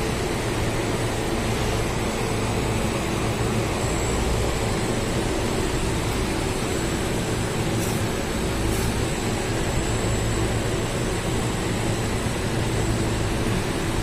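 A running refrigeration unit's Kulthorn hermetic compressor and condenser fan: a steady whirr over a low hum.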